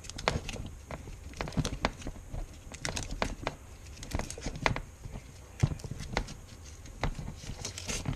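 Irregular clicks, taps and light knocks of hands and tools working on taped-up door wiring.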